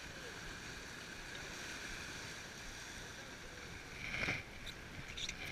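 Sea water washing steadily along the hull of a Gozzard 36 sailboat under way, with a brief louder splash about four seconds in.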